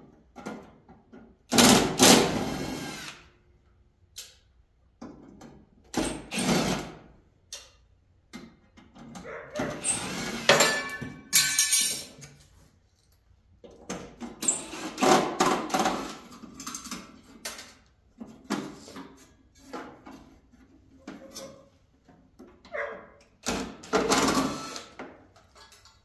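Cordless power driver running in short bursts of one to three seconds, about five times, backing screws out of an air conditioner's sheet-metal cabinet; the loudest burst is about two seconds in.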